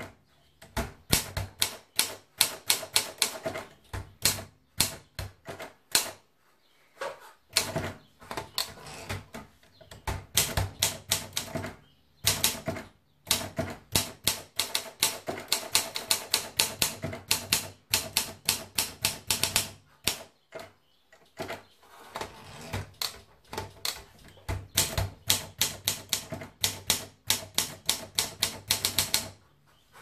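Olympia SM3 manual portable typewriter being typed on: rapid key strikes clacking against the platen in bursts, with short pauses between runs of typing.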